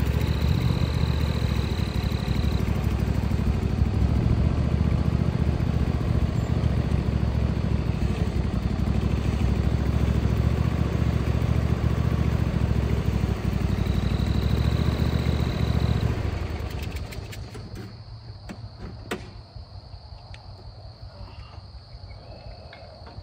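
Riding lawnmower's engine running steadily under load, then dying away about three-quarters of the way through, leaving crickets and a few light knocks.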